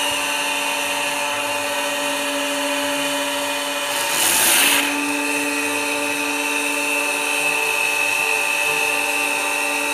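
Sanyo electric jet pump running steadily with a constant motor whine. It is being run with the stop valve closed to pressurise it and find a leak. About four seconds in there is a brief burst of hiss.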